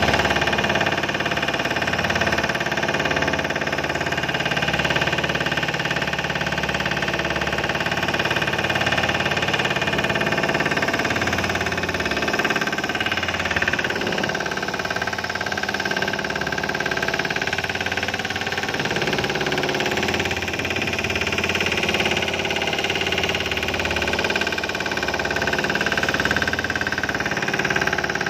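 Fishing boat's engine running steadily, a constant drone that holds its speed throughout.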